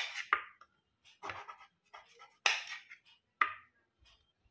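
Kitchen knife slicing through a peeled bottle gourd into thin rounds on a plate: about five separate cuts, each a short sharp sound, spaced roughly a second apart.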